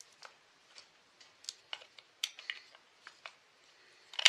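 Irregular sharp clicks and light taps of a small hand tool working against the metal of a Husqvarna 380CD chainsaw's engine at its flywheel end, with the loudest click near the end.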